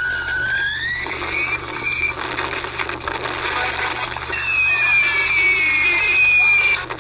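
Battle sound effects from a war film's soundtrack, heard through laptop speakers: high shell whistles over a noisy rumble of battle, one rising in the first two seconds and a longer one falling slowly from about four and a half seconds in.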